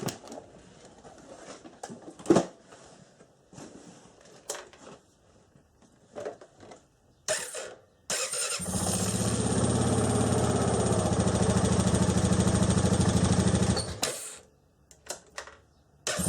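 Honda TRX500FA quad's single-cylinder engine started on the electric starter with its repaired starter motor: after some light clicks, the starter cranks briefly about eight seconds in and the engine catches at once and runs steadily for about five seconds, then stops; near the end it is running again. The quick start shows the starter now works after its brush holder was replaced.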